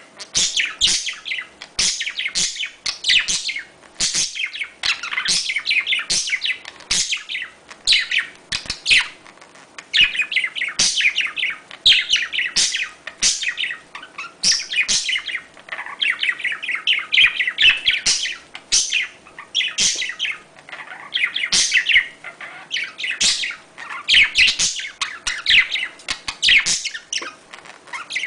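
A flock of budgerigars chattering and warbling: a dense, unbroken stream of short, high chirps, the budgie chatter used as a mating call to stir breeding birds into condition.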